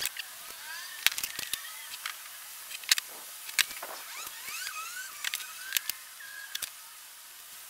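Sharpie marker squeaking on plywood in short gliding strokes, with scattered sharp taps and clicks from a metal ruler being handled on the board.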